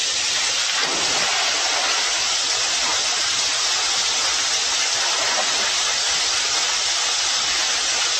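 Water pouring down a rock waterslide and splashing into a swimming pool, a steady rushing hiss.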